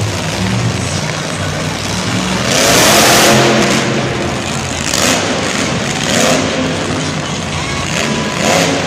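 Monster truck's supercharged V8 engine revving hard as the truck charges at and launches over a dirt jump. The engine surges and falls several times, loudest about three seconds in at the take-off.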